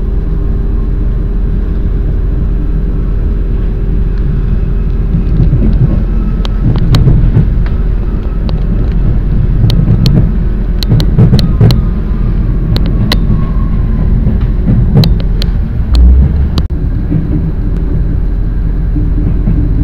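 Steady rumble of a passenger train running, heard from inside the carriage. From about six seconds in until about seventeen, sharp clacks and knocks break in as the wheels run over rail joints and points.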